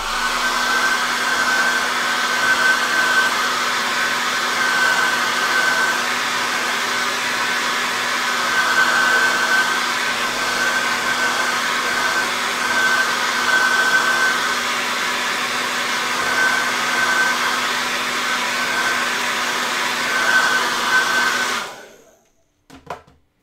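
Handheld hair dryer running steadily, blowing air over wet watercolour paint to dry it, with a steady high whine over the rush of air. It switches off near the end.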